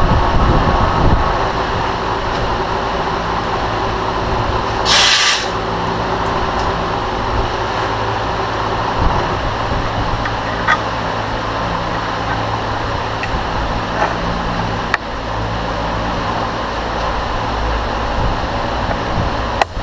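Vertical milling machine running with a steady drone, during countersinking of a bolt-hole pattern in a steel bearing plate. A brief hiss comes about five seconds in, and a few light metallic clicks follow as chips are cleared from the plate.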